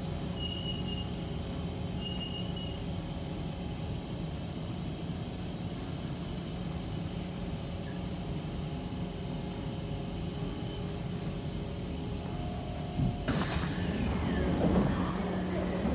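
Kawasaki C151 metro train carriage heard from inside: a steady hum and rumble. About 13 seconds in the noise grows louder, with whining tones sliding in pitch from the traction motors.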